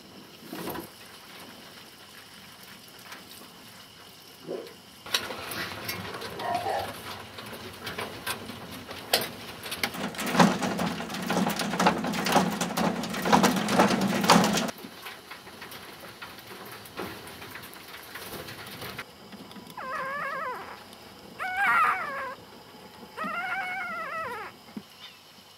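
Fur-farm animals in wire-mesh cages: a stretch of clattering and scrabbling with many clicks that stops abruptly about halfway, then three short whining calls near the end, each rising and falling in pitch.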